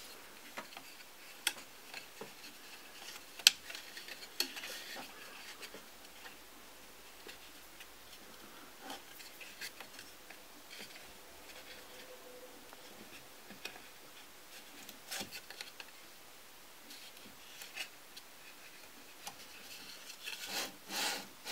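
Faint handling sounds from a Printrbot Simple 3D printer's Y-axis belt drive as fingers fit the idler bearings and work the toothed belt around the drive gear: a few sharp small clicks spread apart, with light rubbing that grows busier near the end.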